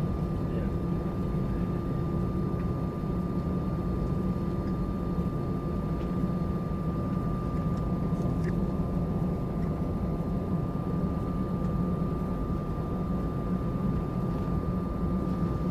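Steady engine and airflow noise of an Airbus A320-200 heard from inside the cabin, a constant low rush with a thin, even whine above it.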